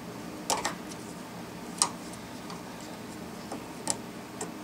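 A screwdriver tip prying and tapping at plastic quick-connect fuel line fittings on a fuel pump module, making a few sharp plastic clicks at irregular intervals. The sharpest click comes just under two seconds in.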